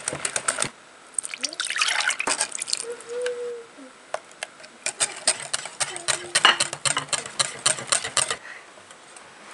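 Wire whisk beating a creamy cheesecake filling in a glass bowl, its wires clicking rapidly against the glass in three bursts, stopping shortly before the end.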